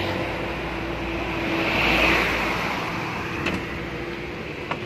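A road vehicle passing close by: its tyre and engine noise swells to a peak about two seconds in and then fades, over a low rumble. Two light clicks come near the end.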